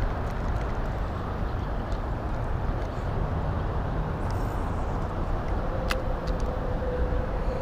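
Steady rumble of road traffic on the bridge overhead. A faint steady hum joins about two-thirds of the way through, and a single sharp click comes near the end.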